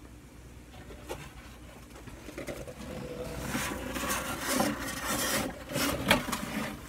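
Rustling and scraping with a few sharp clicks as a pet-store hamster carrier is opened and handled, getting louder about halfway through.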